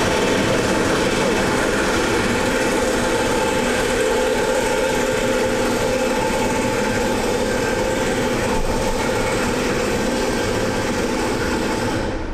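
Hyundai D4CB 2.5 CRDi common-rail diesel idling steadily in a freshly installed rebuilt engine; the sound drops abruptly just before the end.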